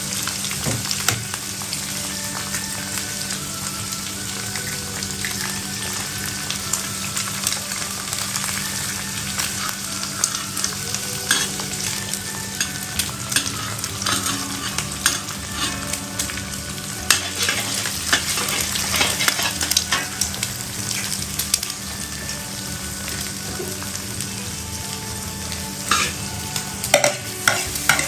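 Food stir-frying in a hot pan: steady sizzling with frequent clacks and scrapes of a spatula against the pan, busier near the end, over a steady low hum.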